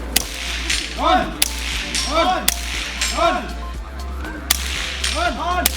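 About five sharp cracks from .22 rimfire rifles firing at roughly one-second intervals, heard over background music with a repeating swooping synth figure and a steady low bass.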